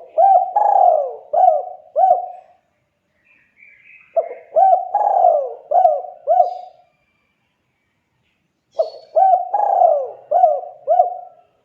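Spotted dove (tekukur) singing its cooing song: three phrases of about five coos each, a couple of seconds apart.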